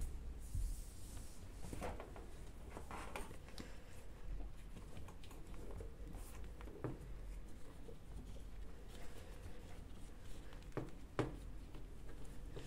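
Soft handling sounds of a cable being pressed into a plastic wall cable channel: light rubbing with a few scattered clicks, the sharpest pair near the end as the channel is pressed shut.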